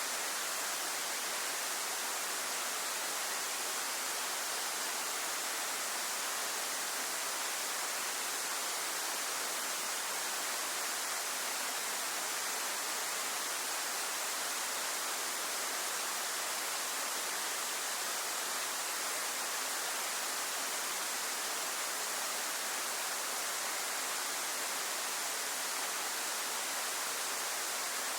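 Waterfall cascading in a steady, unbroken rush, without pauses or individual splashes.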